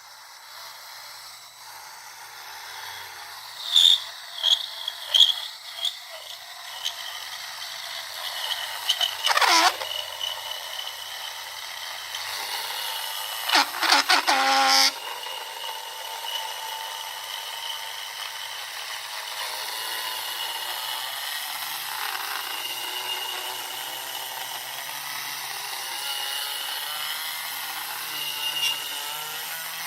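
Small battery-powered Dremel rotary tool running with a steady high whine as its bit cuts a hole in an RX7 turn-signal light, with several louder grinding bursts in the first half.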